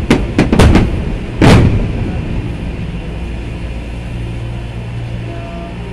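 Aerial firework shells bursting: several sharp bangs in quick succession within the first second and a half, followed by a steady low rumble.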